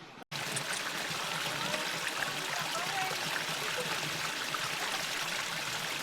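Steady rushing of a mountain stream: an even wash of running water that starts abruptly after a brief gap just after the start.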